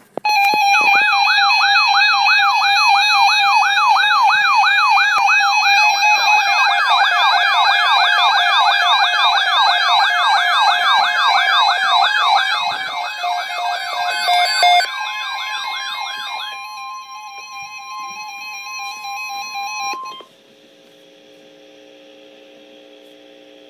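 Emergency alert siren wailing rapidly up and down, about two to three sweeps a second, over a steady tone. Near the end it gives way to a single steady high alert tone of the kind NOAA Weather Radio uses, which cuts off suddenly and leaves a faint steady hum.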